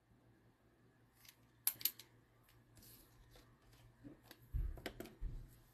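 Faint scattered clicks, a few sharp ones near two seconds in and more about four to five seconds in, with two soft low thumps near the end.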